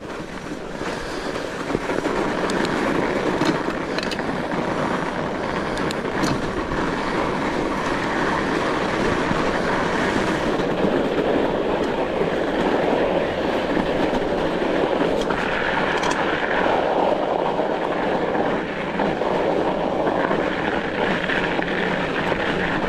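Mountain bike rolling over a rough trail: a steady rushing noise with scattered sharp clicks and rattles.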